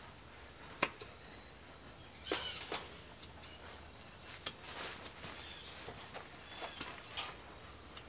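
A steady, high, shrill chorus of insects, with a few sharp clicks of hoof trimmers cutting a sheep's hooves.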